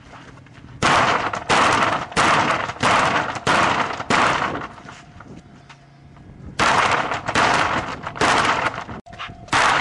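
Roller garage door being kicked hard in a forced-entry kick test, each blow a loud crash with a short rattle of the door's curtain. Six kicks come in quick succession, roughly two-thirds of a second apart, then after a pause of about two seconds a further three or four.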